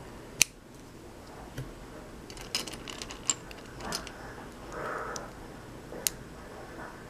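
Plastic Lego bricks clicking as pieces are handled and pressed onto a small model, with about four sharp snaps, the loudest about half a second in. Around the middle there is a soft rattle of loose bricks being sifted through.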